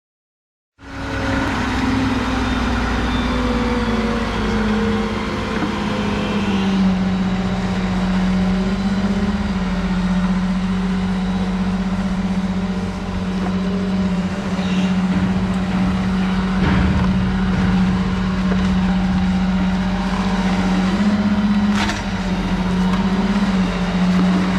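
An engine running steadily at high speed, its pitch dipping slightly a few seconds in and then holding.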